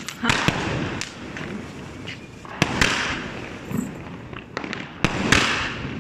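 Aerial fireworks bursting overhead: a series of sharp bangs and crackles at irregular intervals, the loudest about halfway through and about a second before the end.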